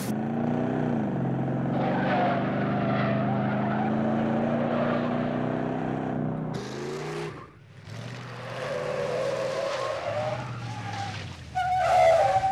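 Car engines revving hard in a high-speed chase, the pitch climbing steadily, broken off suddenly about seven seconds in, then running again. Near the end, tires squeal and skid as a car brakes hard, the loudest moment.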